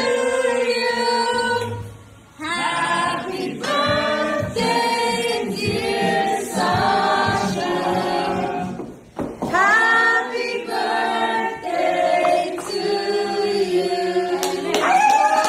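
Several voices singing together, with short breaks about two seconds in and around nine seconds.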